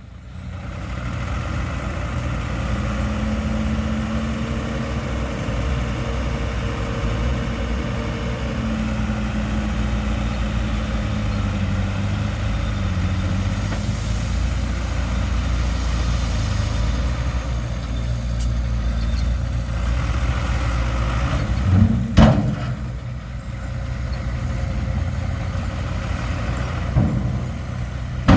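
Diesel engines of earthmoving machines (a bulldozer and dump trucks) running steadily at work, with a single sharp metallic clank about three quarters of the way through.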